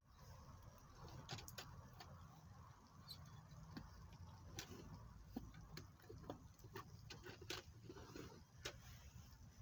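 Small wood fire crackling: faint, irregular sharp pops and ticks, a few a second, over a low steady rumble.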